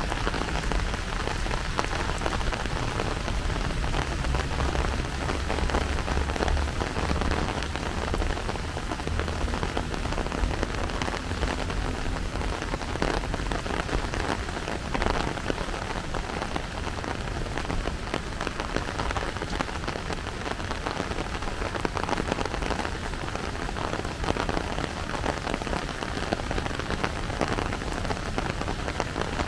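Steady rain falling, a dense patter of small drop impacts, with a low rumble underneath during the first ten seconds or so.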